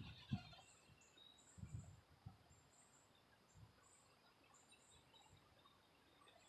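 Faint outdoor quiet with small wild birds chirping repeatedly in short high notes, and a few brief low muffled thumps in the first couple of seconds.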